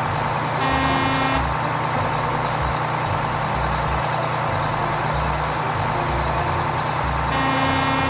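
Big semi-truck running as it drives along, a steady engine and road noise, with two short horn blasts, about a second in and near the end.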